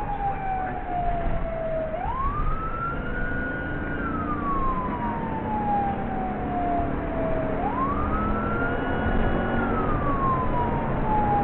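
Police siren on a slow wail, heard twice: it rises quickly to a held high note, then glides down for several seconds. Engine and road noise run beneath it inside the moving car.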